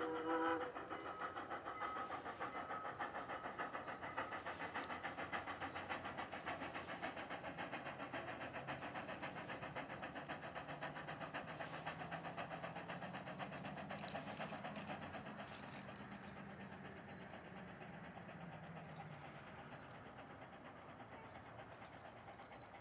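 Ex-Canadian National 2-6-0 mogul steam locomotive No. 89 working a freight train, its exhaust chuffing in a fast, even beat that slowly fades. A whistle cuts off about half a second in.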